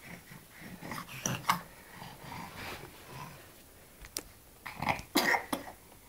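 A nine-month-old baby making short throaty grunts and cough-like noises, loudest about five seconds in, with one sharp click just before.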